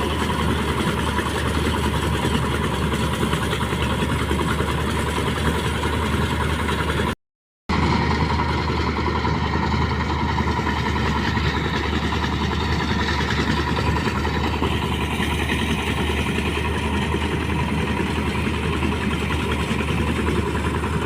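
Engine-driven rice thresher running steadily, a constant loud mechanical noise with a low hum. It cuts out completely for about half a second around seven seconds in.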